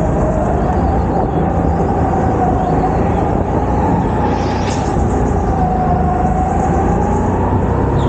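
Go-kart running at speed on an indoor track, heard onboard: a steady rumble with a whine that rises and falls slightly with speed, dipping a little about six seconds in.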